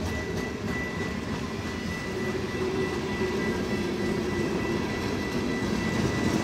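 Freight train rolling past: a steady rumble of wheels and running gear on the rails, growing a little louder about two seconds in, with a thin steady high tone over it.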